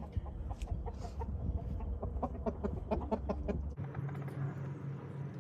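Chickens clucking in a quick run of short calls. The clucking fades about four seconds in as a steady low hum sets in.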